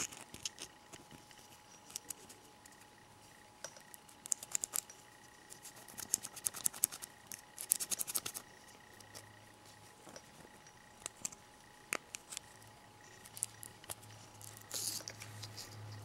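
Faint rustling and scratching of nylon 550 paracord being threaded and pulled through a plastic buckle clip, with scattered light clicks and handling noises in several short clusters.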